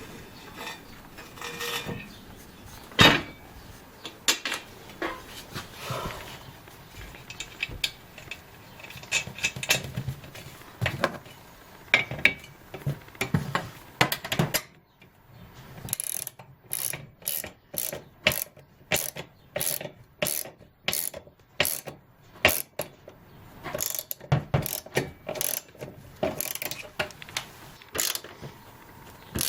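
Hand ratchet wrench clicking as the stand's bolts are tightened into the floor and wall. The first half holds scattered knocks and clicks; from about halfway there is a steady run of sharp clicks, roughly two a second.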